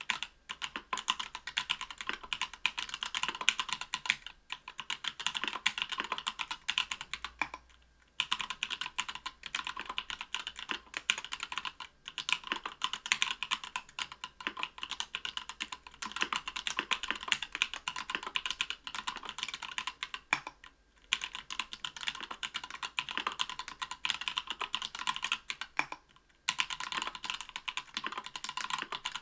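Fast, continuous typing on an Octagon V3 mechanical keyboard with stock, unlubed SP-Star Polaris Gray 67g linear switches in an aluminium plate, under Cherry-profile PBT keycaps. The keystrokes come in long streams, broken by a few short pauses.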